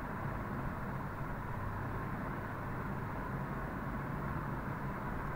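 Steady low background noise, a hum with a faint hiss, on an open microphone; nothing else happens.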